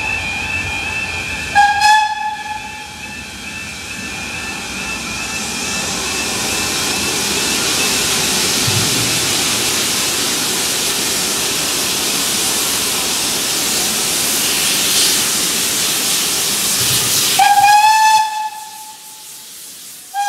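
Steam whistle of BR Standard Class 4 tank locomotive 80078: a short blast about two seconds in, then a long hiss of steam that swells as the engine draws near, then a longer, loud whistle blast near the end and a brief toot as it reaches the crossing.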